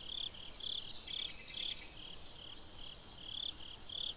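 Outdoor insect chorus: a high, evenly pulsing chirp repeating about two to three times a second. A higher, bird-like twittering runs over it for the first half.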